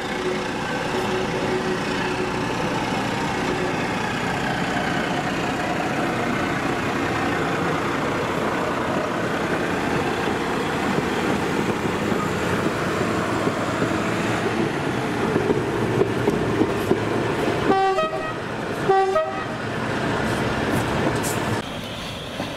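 A train of locomotives and rolling stock passing: a diesel locomotive's engine running as it draws by, over a steady rumble of wheels on the track. Late on, a locomotive gives two short toots about a second apart.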